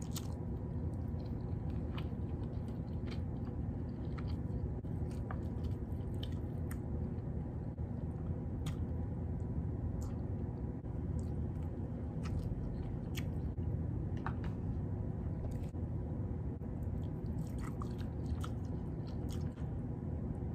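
A person chewing and smacking while eating salmon dipped in melted butter, with scattered short wet clicks of the mouth and fingers over a steady low hum.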